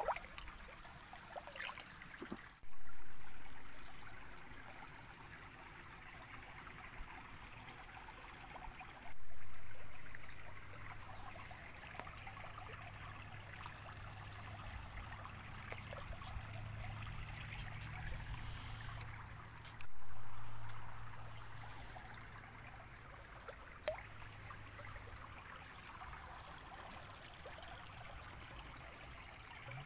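Shallow stream water running and trickling steadily around gumboots. Three sudden low thuds on the phone's microphone, each fading away over a second or so.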